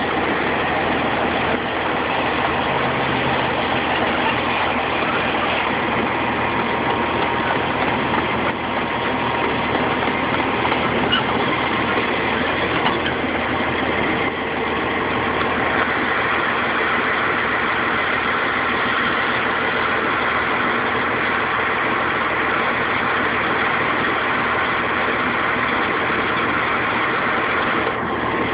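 Heavy road-work machine's engine running steadily, heard up close from on board.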